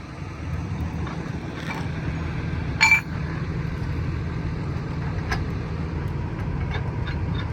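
Track maintenance at a railroad diamond crossing: a steady low engine rumble from work equipment, with one sharp, ringing metal clank a little before three seconds in and a few faint metallic clicks.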